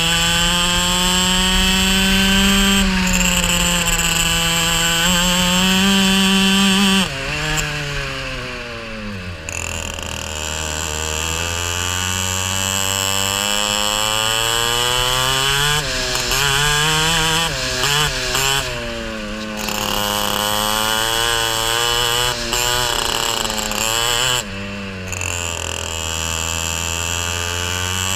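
Racing kart engine heard close up from the onboard camera, pulling hard at high revs. The revs drop sharply about a quarter of the way in as the kart slows for a corner, then climb steadily again, with several shorter dips and recoveries through the rest of the lap.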